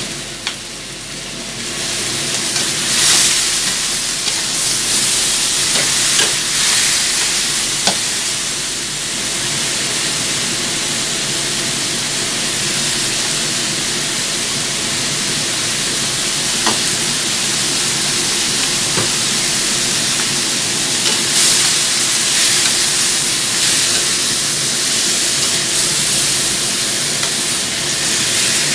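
Chicken pieces frying and sizzling in hot oil in a pan, with salty soy sauce just added. Steady sizzling hiss, with occasional clicks of the stirring utensil against the pan.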